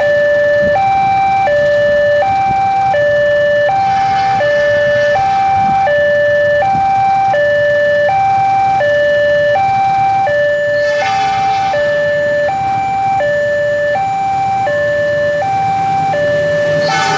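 Railway level-crossing warning alarm sounding while the barriers are down for an approaching train: an electronic two-tone alarm alternating high and low, each tone held about three-quarters of a second.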